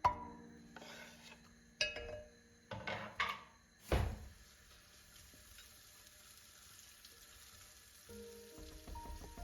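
Several sharp knocks of pots and utensils, the loudest about four seconds in, then a steady sizzle of food frying in a pan. Soft background music.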